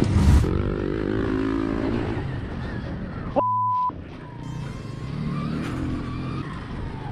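Motorcycle engines running while riding dirt roads, heard from the bikes' onboard cameras. About three and a half seconds in, a half-second censor bleep, a flat beep tone, cuts in.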